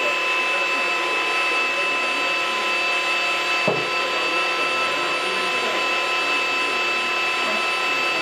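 Flex rotary polisher running flat out with its foam pad held on a painted panel: a steady high motor whine. It is being run at high speed in one area on purpose to build heat and push the paint toward burning through. One short knock comes a little before the middle.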